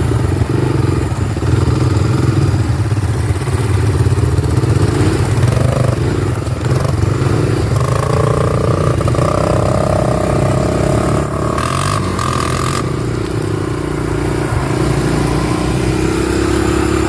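ATV (four-wheeler) engine running as it is ridden, its pitch rising and falling with the throttle.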